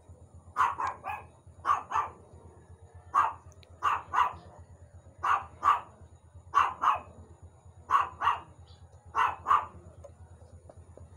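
Dog barking repeatedly, mostly in quick pairs of sharp barks, about one pair every second and a half.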